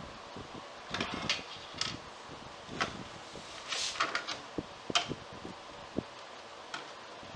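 Screws being worked out of a small metal hinge on an oak drop-lid with a hand screwdriver: scattered light clicks and clinks of the tool on screw and hinge, with a brief rasping scrape about four seconds in, over a steady low hum.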